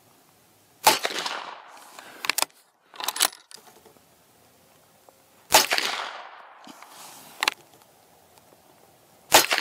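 Three suppressed shots from a 300 Blackout rifle firing subsonic ammunition, about four and a half seconds apart, each a sharp report with a short fading tail. Sharp metallic clicks of the bolt being worked follow the first two shots.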